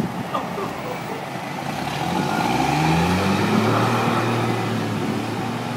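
Dodge Cummins inline-six turbodiesel pickup engine revving up, its pitch rising about two seconds in and then holding steady. The engine is said to have bad injectors.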